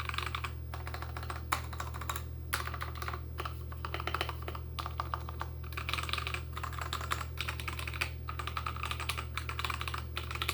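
Fast typing on a Royal Kludge RK61 mechanical keyboard with lubed switches. A dense, continuous run of key clicks, broken by brief pauses, gives the clean, chunky sound of lubed switches.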